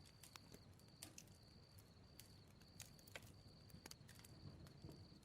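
Faint crackling of a bonfire: sparse, irregular sharp pops and snaps over a soft low rumble, with a faint high-pitched tone pulsing on and off in the background.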